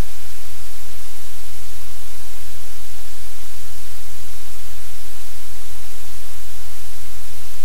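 Loud, steady low hum with an even hiss over it, unchanging throughout: electrical noise in the audio feed rather than any sound from the room.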